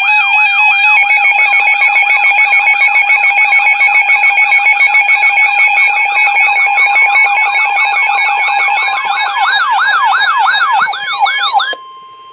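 Emergency alert tones for a tornado warning, several sounding at once: a steady alert tone with rapidly repeating siren-like sweeps over it. The sweeps quicken near the end, then everything cuts off suddenly, leaving a faint steady tone.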